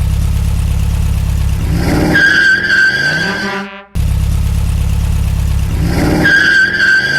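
A truck engine's low, steady rumble, then a high-pitched horn blast held for about a second and a half over it. The sound cuts off briefly and the same engine-then-horn clip plays again.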